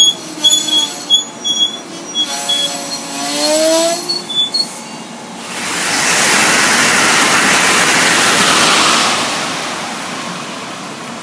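Amtrak passenger train's wheels squealing against the rails in wavering tones that rise in pitch, with scattered clicks, as it slows along the platform. About halfway through comes a loud, steady hiss of rushing noise lasting about three seconds, which then fades away.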